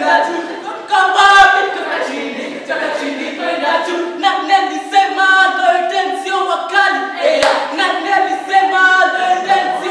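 A group of voices singing together a cappella, a rhythmic song in short held notes, with a few sharp accents.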